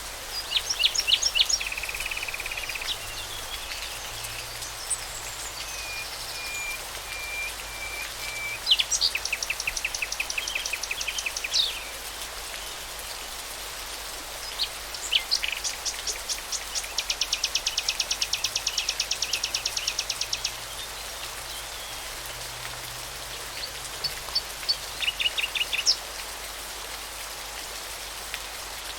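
A bird singing loud phrases of rapid repeated high notes and buzzy trills, several phrases a few seconds apart, over a steady hiss.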